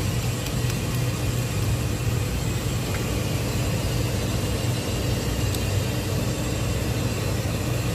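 Steady low mechanical hum of running machinery, unchanging throughout, with a couple of faint ticks.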